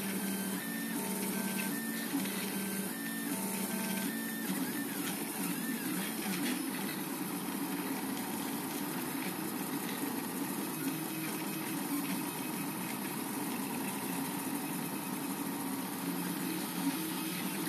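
Portabee RepRap 3D printer's stepper motors whining as the print head moves. In the first few seconds the tones jump between pitches in steps, and then they settle into a busier, steady whirr.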